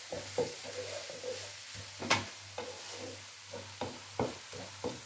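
Chopped fenugreek leaves and spring onions sizzling in a wok over high heat, with a spatula stirring and knocking against the pan at irregular moments, the loudest knock about two seconds in.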